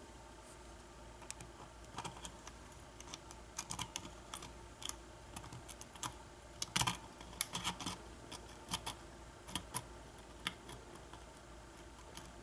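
Irregular small metallic clicks and ticks of a lock pick and tension wrench working the pin tumblers of a Kwikset lock during single pin picking, with a cluster of louder clicks about midway.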